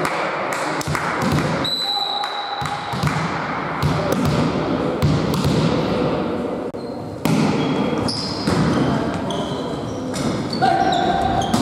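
Indoor volleyball play: a ball thudding and being struck repeatedly, with short sneaker squeaks on the court floor, most of them near the end during a rally, over players' voices in the hall.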